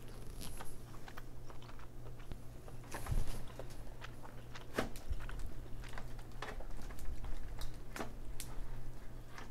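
Cooked king crab leg shell being cracked and peeled apart by hand: scattered crackles and sharp clicks, with a louder crack about three seconds in, mixed with mouth sounds of chewing crab meat.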